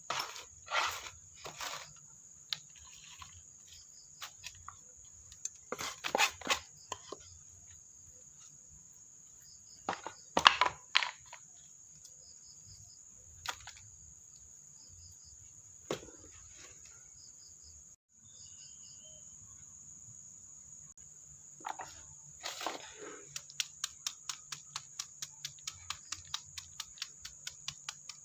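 Crickets chirring steadily at a high pitch, with scattered knocks and clatters over it. Near the end comes a quick run of evenly spaced taps, about three or four a second.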